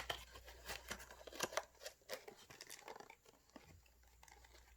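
Trading-card packs and cards being handled: faint crinkling of pack wrappers and cardboard with a scatter of short sharp ticks, busiest in the first three seconds and thinning out after.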